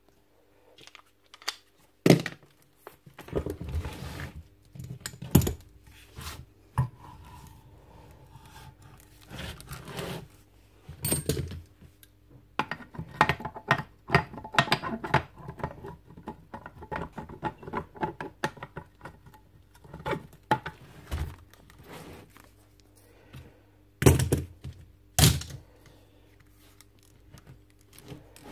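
Hand tools and metal parts of a magnetic drill clunking, clicking and scraping as its drill section is taken apart, with a few sharp knocks, two of them close together near the end.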